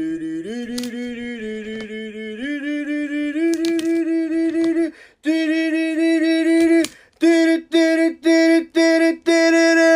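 A voice singing or humming a wordless tune: held notes stepping upward over the first few seconds, then five short repeated notes near the end.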